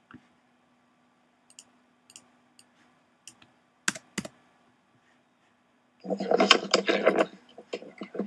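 Laptop keyboard and handling clicks: scattered single taps for the first few seconds, two sharper knocks near the middle, then a dense clatter of taps lasting about a second, over a faint steady hum.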